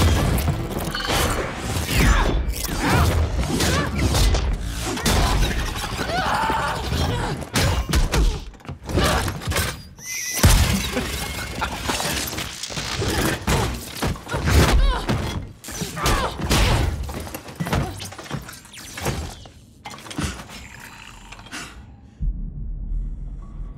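Fight sound effects over a music score: a fast run of hits, crashes and shattering glass and metal. The sound quietens near the end to a low rumble.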